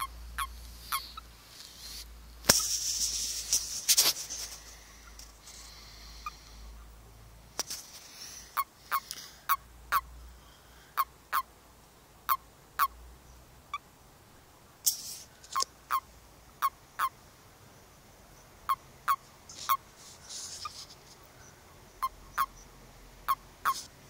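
Common toads in a mating ball giving short, sharp croaking chirps, often in pairs, about two dozen in all from a third of the way in. These are typical of the release calls male toads make when clasped by another male. A loud rustling burst comes a few seconds in.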